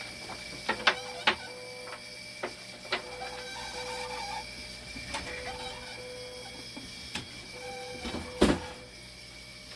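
Short mechanical hums that start and stop over and over, like a small motor or pump cycling, with a handful of sharp clicks and knocks; the loudest knock comes near the end.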